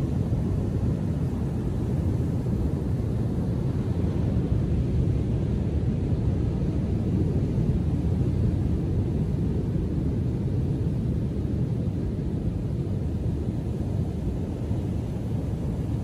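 Storm-stirred Atlantic surf: breaking waves and wash running together into a steady, deep rumble.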